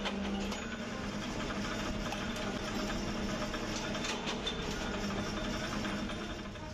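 Steady hum of running workshop machinery, with scattered light clicks and knocks.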